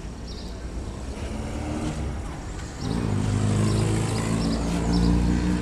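A motor vehicle engine running with a steady hum that gets noticeably louder about three seconds in.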